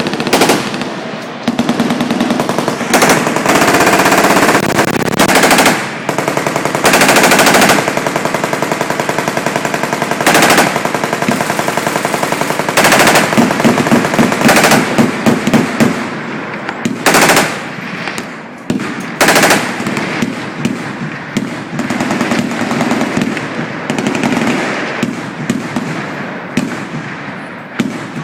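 Machine guns firing in long, overlapping bursts, the rapid shots running together into near-continuous fire, with louder bursts standing out every few seconds.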